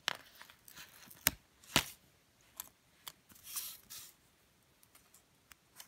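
Paper sticker being peeled off its backing sheet and handled: faint paper sounds, with two sharp ticks around a second and a half in and a short soft rustle a little past halfway.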